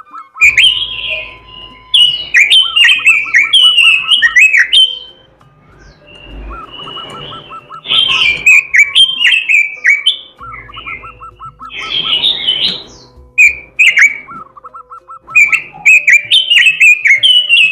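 Pekin robin (red-billed leiothrix) singing vigorously: loud phrases of fast, sharply sliding whistled notes, four or five bursts of a few seconds each with short pauses between them.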